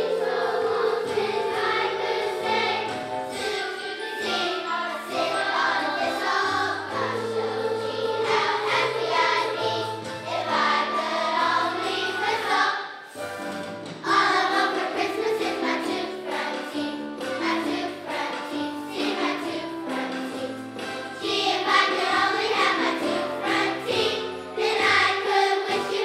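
Elementary-school children's choir singing a Christmas song in unison over instrumental accompaniment, with a brief break in the music about halfway through.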